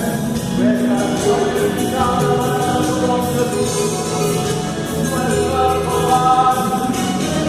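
Christian gospel song: a woman singing held, wavering notes over an instrumental backing track.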